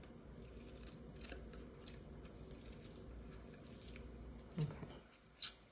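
Scissors cutting construction paper: a few faint snips, then a sharper click near the end.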